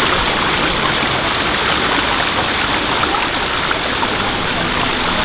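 Waterfall water rushing and splashing steadily and loudly, with no let-up.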